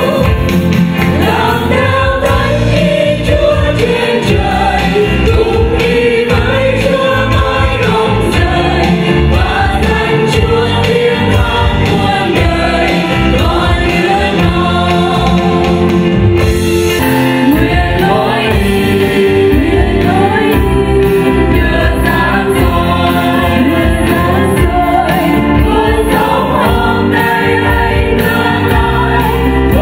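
A church worship team of women's voices and a man's voice sings a Vietnamese-language hymn into microphones, with keyboard and band accompaniment.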